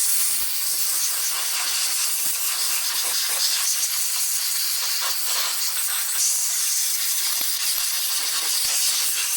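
Compressed-air blow gun hissing steadily as it blows dirt and fines out of a chainsaw's carburetor and intake area, with a few faint knocks.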